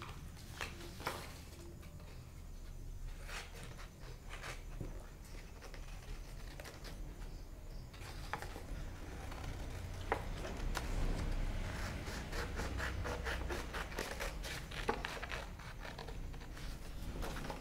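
Scissors cutting through a sheet of paper: a string of snips with paper rustling as the sheet is turned. The snips come quick and close together in the second half.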